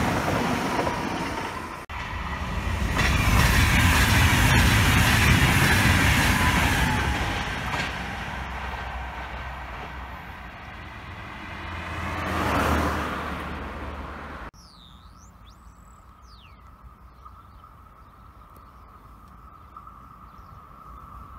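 Electric passenger train passing close on the main line: a loud rush of wheels on rail that fades as it draws away, with a second swell just before it cuts off suddenly. After that it is much quieter, with birds chirping and a faint steady tone.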